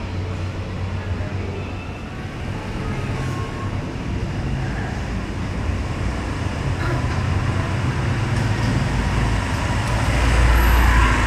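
Low, steady rumble of vehicles moving through a street, growing louder toward the end.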